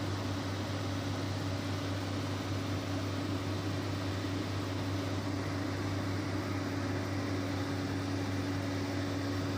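Heavy excavator diesel engine running at a steady speed, a constant low hum with an even tone above it.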